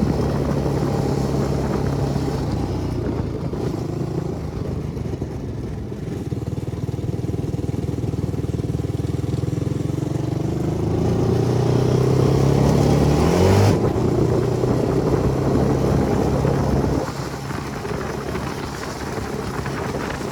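Manual-shift ATV engine running, its pitch climbing steadily as it revs up over a few seconds, then dropping suddenly at a gear change. It runs quieter for the last few seconds.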